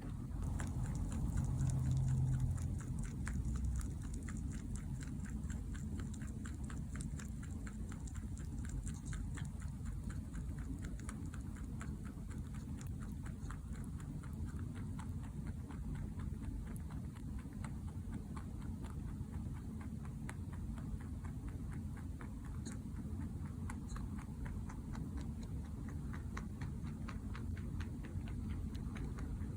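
Mini Rex rabbit chewing: a fast, uneven run of soft clicks from its teeth, several a second, over a low steady hum.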